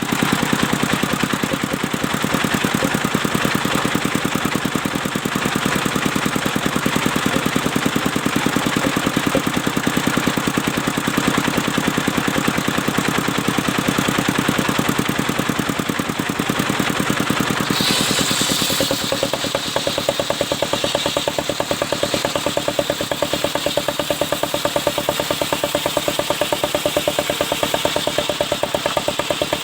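Engine of a portable circular sawmill running steadily with a fast, even pulse. About eighteen seconds in there is a brief high hiss and the machine's tone shifts.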